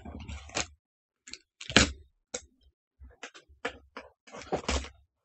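Cardboard box being pulled and torn open by hand: a run of irregular cardboard rips, crackles and scrapes, the loudest about two seconds in.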